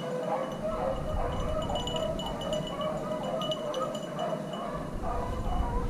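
A pack of beagles baying on a rabbit's track: overlapping hound voices in short, repeated pitched calls, with a faint steady high ringing tone over them.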